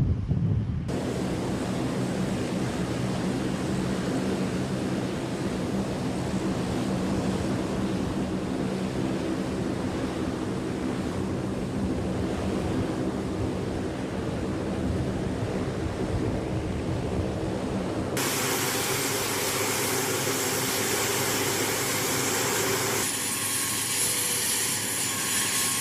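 C-130 Hercules turboprop engines and propellers running, a steady droning hum. The sound changes abruptly twice, about two-thirds of the way through and again near the end, becoming hissier with a high steady whine.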